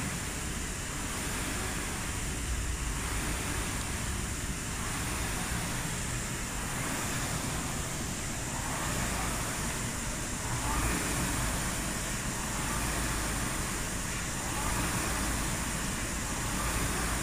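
Concept2 air rowing machine being rowed hard: the flywheel fan whooshes in a swell on each drive stroke, about one stroke every two seconds.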